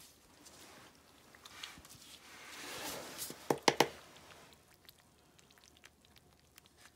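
Wooden stick stirring a pail of soaked, fermenting chicken-feed grain: a wet squelching and sloshing that swells, then three sharp knocks about three and a half seconds in, followed by faint scattered ticks.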